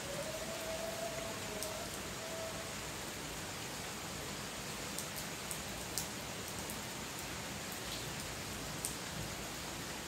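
Steady rain falling on paving, with a few sharp drop ticks standing out in the second half.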